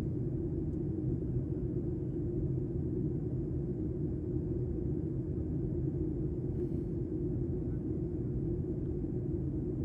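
Steady low rumble of outdoor field noise with no clear tone or crackle in it.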